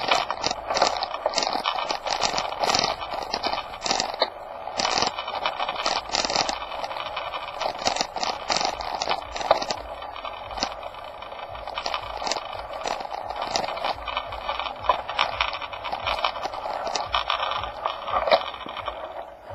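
Continuous jittery rattling and scraping from a mounted camera jolting along a rough dirt lane.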